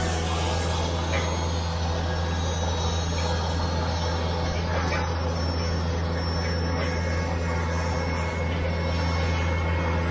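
Steady low engine drone of ramp machinery, holding a constant hum throughout with no change in pitch.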